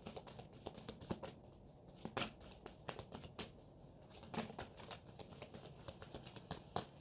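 A deck of Romance Angels oracle cards being shuffled by hand: a run of soft, irregular card clicks and flicks.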